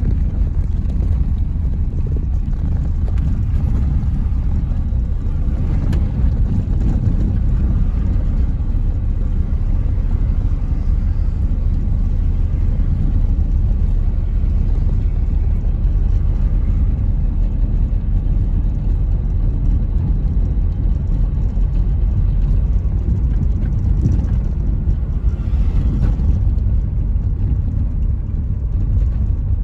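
Steady low rumble of engine and tyre noise inside the cabin of a moving car.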